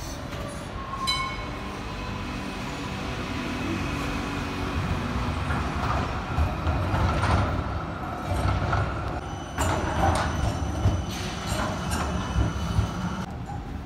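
Melbourne Z3-class electric tram running along the track into the stop: a steady rumble of motor and steel wheels on rail that grows louder as it nears, with thin squealing tones and several clunks over the rail joints in the second half. A short metallic ring sounds about a second in.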